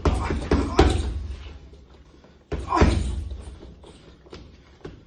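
Boxing gloves punching a hanging heavy bag: a quick run of thuds at the start, the loudest a little under a second in, then another flurry about two and a half seconds in.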